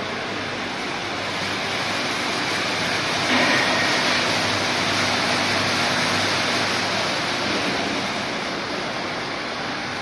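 Crate washer running: water spraying inside the stainless-steel tunnel as a steady rushing hiss, with a faint hum of its pumps and motors underneath. It gets louder about three seconds in.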